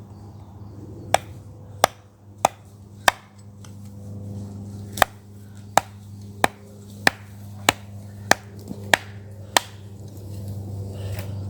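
Firewood being chopped: a dozen sharp blows, about one and a half a second. There is a short break of about two seconds after the fourth blow.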